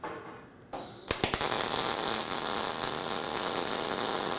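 MIG welding arc running on the butt joint of a steel foot ring. After a short sputter of starts, it burns steadily from about a second in, a dense sizzling crackle.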